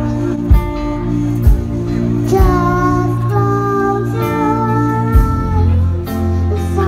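A young girl singing into a microphone over a live band of acoustic guitar, electric bass and keyboard, with a few drum hits.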